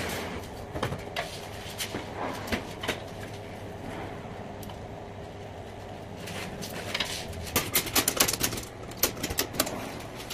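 Cargo strap buckle clicking as the webbing strap is cinched tight around a cabinet on a hand truck. A few scattered clicks come first, then a quick run of louder clicks about three-quarters of the way through.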